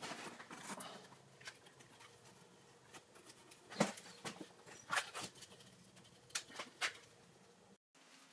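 Scattered light taps and knocks from handling a cardboard box lined with aluminium foil and a wooden stick propped on it. The sharpest knocks come about four and five seconds in, and a pair near the end.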